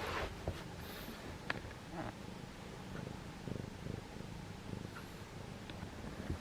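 Persian cat purring steadily, with a few light rustles.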